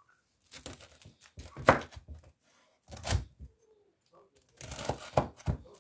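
Large knife cutting through crisp toasted bread slices topped with melted cheese, in several short rounds of crunching, with the blade thudding onto a wooden cutting board.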